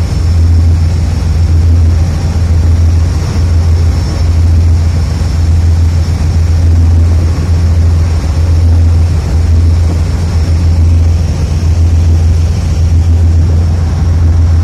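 Steady low rumble of a ship under way, with water rushing and churning along the hull.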